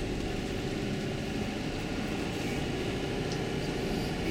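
Tour bus driving, heard from inside the cabin: a steady mix of engine and road noise with no change in pace.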